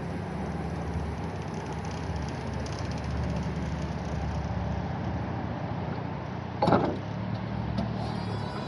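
Electric forklift running, a steady mechanical hum. A single sharp knock about seven seconds in is the loudest sound.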